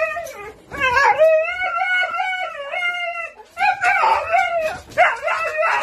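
A husky howling in wavering, drawn-out calls: one long howl of about two and a half seconds, then two shorter, rougher ones.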